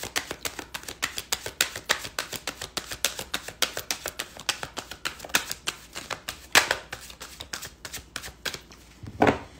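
A deck of tarot cards being shuffled by hand: a quick, even run of soft card slaps, about five or six a second. The shuffling stops shortly before the end, followed by one louder thump.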